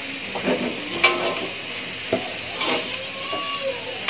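Salted squid, tofu, tomato and spring onion sizzling in a metal wok over a gas flame. A spatula scrapes and knocks against the wok as the food is stirred, with the sharpest knock about a second in.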